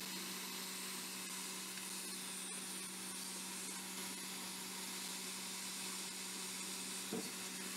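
Quick 861DW hot air rework station blowing a steady hiss of hot air with a low hum underneath, set to 120 °C and airflow 80.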